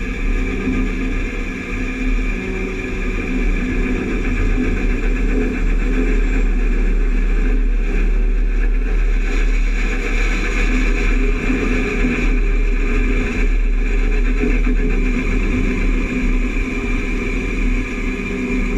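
Steady running of harvest machinery while a John Deere combine unloads on the go, its unloading auger pouring grain into a grain cart; engines and auger run evenly with no change in pitch.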